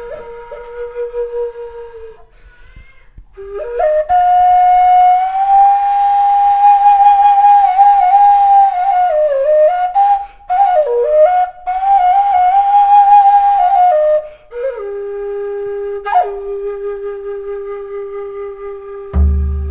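Solo wooden wind pipe playing a slow, ornamented melody: long held notes with bends and quick turns, a higher phrase in the middle, then one long low note. A deep drum beat comes in near the end.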